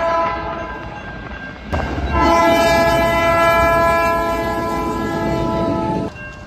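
Locomotive air horn sounding a chord of several notes: a brief blast at the start, then after an abrupt cut a long blast of about four seconds, with engine rumble beneath, that stops suddenly.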